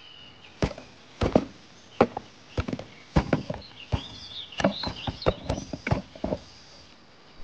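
An irregular series of sharp knocks and taps, about a dozen over several seconds, with faint high chirps in the background.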